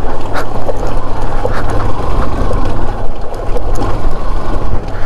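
A motor vehicle's engine running, a steady low rumble with scattered clicks.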